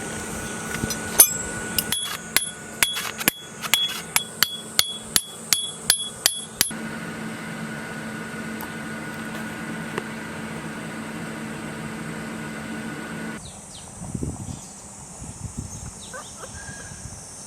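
A quick run of about sixteen sharp metallic taps with a short ring, about three a second, over a steady machine hum. The hum stops suddenly a few seconds before the end.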